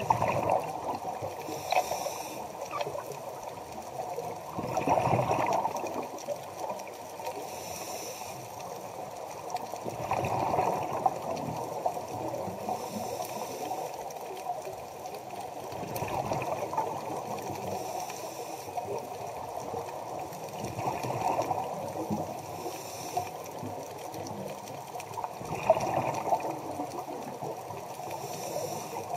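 Scuba diver breathing through a regulator underwater: a burst of exhaled bubbles about every five seconds, with a fainter hiss of the inhale in between, heard muffled through the camera's underwater housing.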